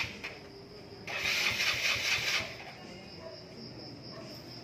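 Socket ratchet clicking in one burst of about a second, working a spark plug in or out. A steady high tone runs underneath.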